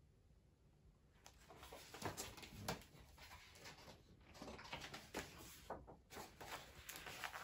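Pages of a large hardcover picture book rustling and flapping as they are handled and turned, in a run of uneven papery rustles and soft clicks that begins about a second in.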